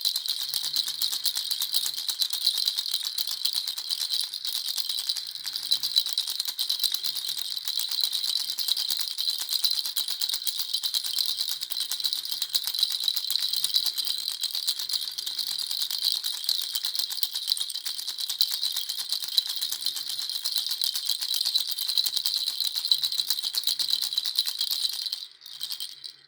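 Baby rattle shaken continuously, a dense fast stream of small rattling clicks that stops about a second before the end.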